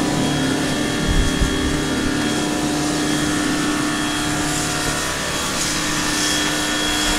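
A motor-driven machine running steadily at constant speed: an even hum with a faint high whine over a rushing noise. A few low bumps come about a second in.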